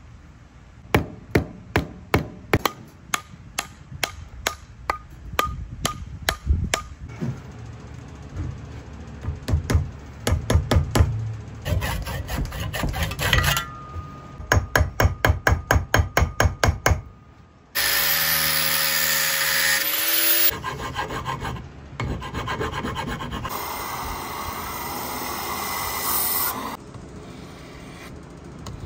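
Runs of sharp hammer blows on the wooden handle of a cast bronze axe head as the head is seated, coming faster, about two or three a second, midway through. Then an electric belt sharpener runs for a few seconds at a time, grinding the bronze edge.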